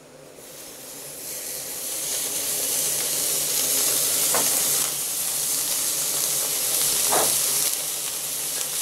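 Raw rib-eye steak sizzling as it sears on a grate over a glowing infrared burner at very high heat. The sizzle swells over the first two seconds after the meat goes down, then holds steady, with two brief pops about four and seven seconds in.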